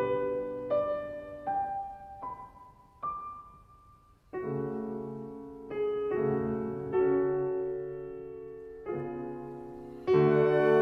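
Slow instrumental background music: a rising line of single notes, then held chords from about four seconds in, with a fuller chord entering near the end.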